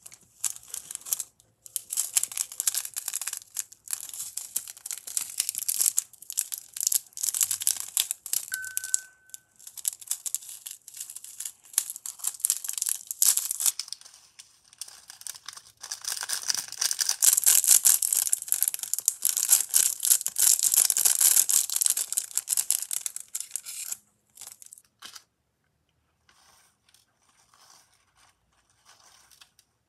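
Crinkling and rustling of a small clear plastic packet of glitter sprinkles being handled and emptied over slime, with a brief high squeak about a third of the way in. The crinkling stops about 24 seconds in, leaving only faint soft sounds of fingers pressing the slime.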